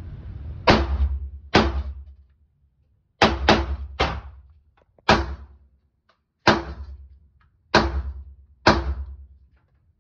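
AR-15 rifle fired nine times in single semi-automatic shots at an uneven pace, with a quick pair about three seconds in. Each loud shot rings out briefly in the indoor range.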